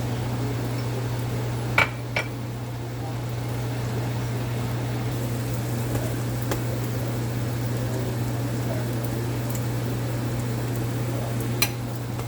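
A few sharp clinks of a cooking utensil against a pan: two close together about two seconds in, one midway and one near the end, over a steady low hum.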